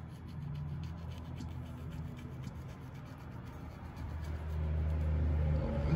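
Fillet knife blade scraping and rubbing along a wooden cutting board as it is pressed between the skin and meat of a small fish fillet, a run of faint small scratches. A low rumble builds from about four seconds in.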